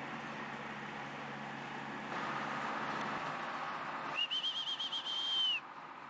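A high whistle: a quick warbling trill that settles into a steady note, held about a second and a half in all, then dips and stops abruptly.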